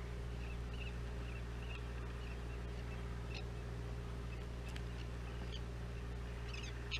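Boat engine running steadily with a low hum, while seabirds flying over the boat give short high calls: a run of small chirps in the first second or two and a quick cluster near the end.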